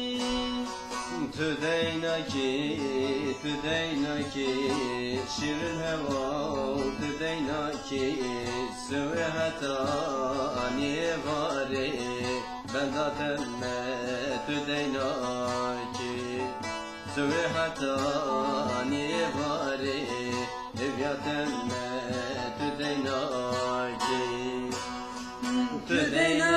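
A saz playing an instrumental break in a folk song: a fast plucked melody with wavering, ornamented notes.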